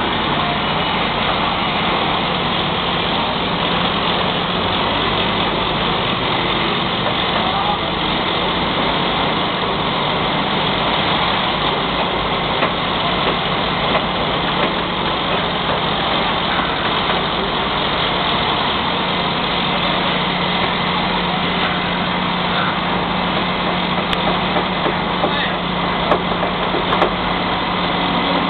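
Diesel engine of a truck-mounted telescopic crane running steadily while it hoists a steel column, a constant engine drone with a low hum that weakens a few seconds in and comes back about two-thirds of the way through.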